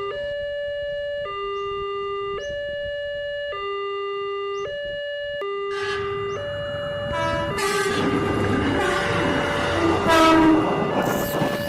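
Two-tone railroad-crossing warning alarm alternating between a low and a high tone about once a second. From about six seconds in, the noise of an approaching train builds over the alarm and is loudest about ten seconds in.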